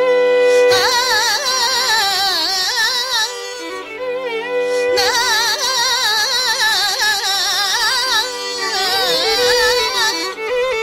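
Carnatic classical music in raga Sankarabharanam: a heavily ornamented melody line with wavy, sliding notes, in phrases of a few seconds with short breaks, over a steady drone.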